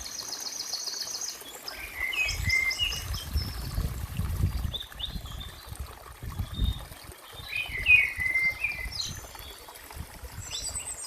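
Small stream trickling with several birds singing over it: a fast, high trill at the start, short falling phrases about two seconds in and again near eight seconds, and another high trill near the end. A low rumble comes and goes through the middle.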